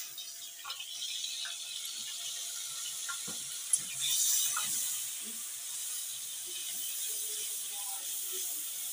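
Tamarind water sizzling and bubbling in a hot steel wok, with a metal spatula stirring and scraping through it. A sharp click comes a little before halfway, and the sizzle swells just after it.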